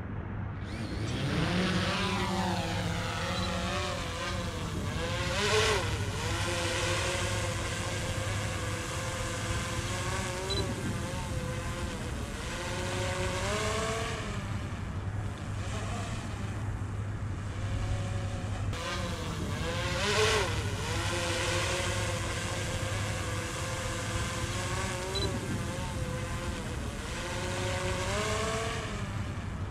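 Quadcopter drone's propellers whining as it flies overhead, the pitch rising and falling as it manoeuvres. It is loudest twice, about five seconds in and about twenty seconds in, where the pitch swoops down as it passes close.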